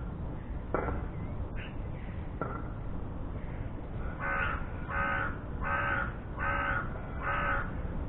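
A crow cawing five times in a steady series, each caw about half a second long, after a couple of sharp clicks earlier on.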